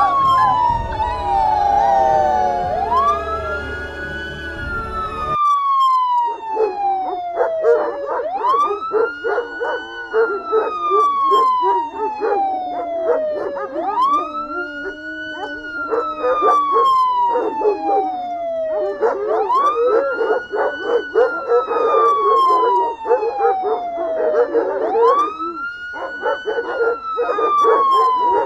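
Emergency siren wailing in a repeating cycle, rising quickly and falling slowly about every five and a half seconds, with dogs howling along under it. One siren recording cuts abruptly to another about five seconds in.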